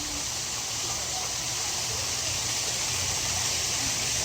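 Steady, even rush of running water with no breaks.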